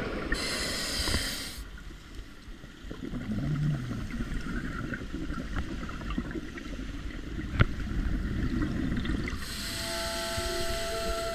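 Scuba diver breathing through a regulator, heard underwater: a hissing inhalation through the demand valve, then a long low burble of exhaust bubbles, and a second hissing inhalation near the end. One sharp click about two-thirds of the way through.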